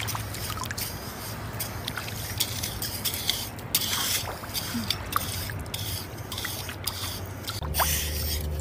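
Shallow seawater trickling and splashing as hands and a hand rake dig for clams in wet sand, with scattered small clicks of shells and grit.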